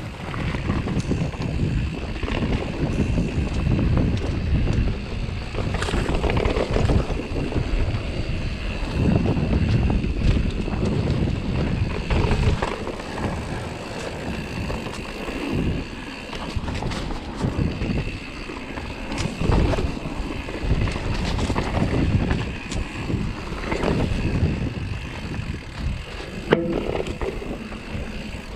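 Mountain bike ridden along a dirt singletrack: wind buffeting the microphone over the uneven rumble of knobby tyres on the trail, with frequent short knocks and rattles from the bike over bumps and roots, one sharper knock near the end.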